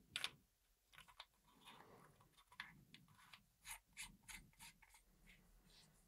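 Very faint, scattered clicks and light taps of a disassembled flashlight's parts being handled.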